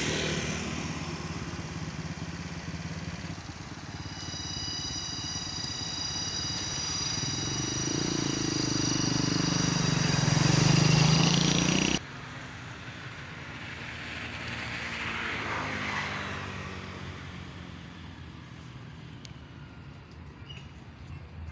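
A motorbike engine passing on a nearby road, growing louder to a peak and then cut off abruptly about halfway through. A second, fainter pass swells and fades a few seconds later.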